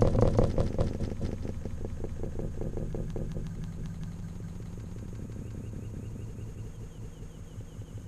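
A starling's wingbeats as it lands on the bird table and flies off: a run of soft fluttering beats, about five a second, that fades away over the first few seconds, over a low steady rumble.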